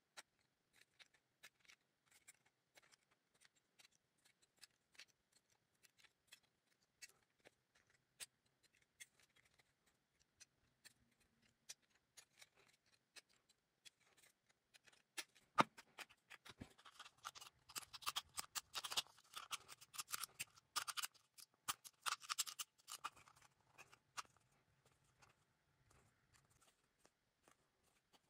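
Multitool pliers snipping and crimping the thin rim of an aluminium drink can: scattered faint snips and clicks, then from about halfway a louder, denser stretch of crinkling, scraping metal as the can is worked.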